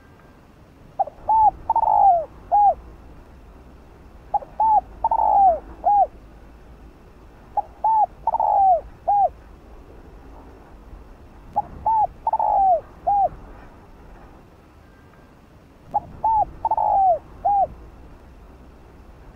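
Spotted dove cooing its song five times, a phrase every few seconds. Each phrase is two short coos, a longer falling coo and a short final coo.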